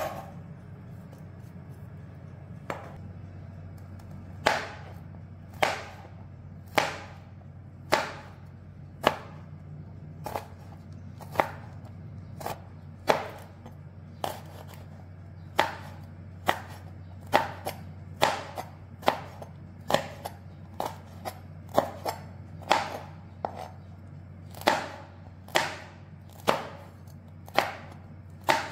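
Knife slicing red chillies on a plastic cutting board: a run of sharp knocks, about one a second at first and quicker later, over a steady low hum.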